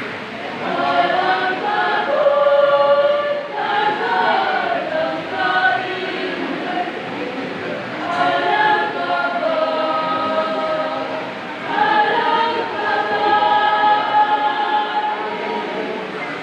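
Mixed choir singing a hymn in several-part harmony, in sustained phrases with short breaths between them.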